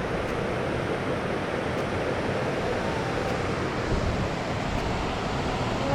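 Steady rush of a waterfall pouring into a creek pool.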